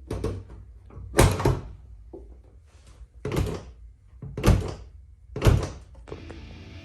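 A series of heavy thunks, about five of them roughly a second apart. Background music starts near the end.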